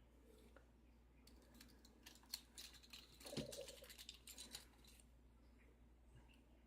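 Faint, quick metallic clicks and ticks as small pin springs are worked out of the chambers of an Arrow KIK lock cylinder, with a soft knock about three and a half seconds in.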